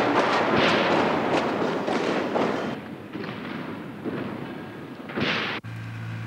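A Mercedes-Benz W201 test car tumbling in a rollover crash test: a dense run of crashing and scraping as the body strikes and slides on the concrete. It dies down after about three seconds, then one more loud burst comes before the sound cuts off suddenly into a low steady hum.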